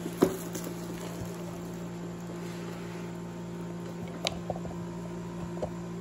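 Steady low electrical hum, with a sharp click just after the start and a couple of fainter clicks later as a hand works a paper-wrapped part loose from a moulded packaging tray.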